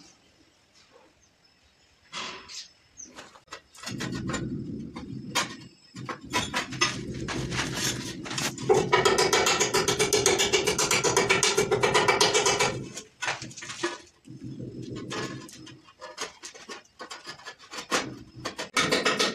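Masonry chisel chipping a hole through a ceramic wall tile: rapid light taps and scraping, densest and loudest near the middle, then scattered taps.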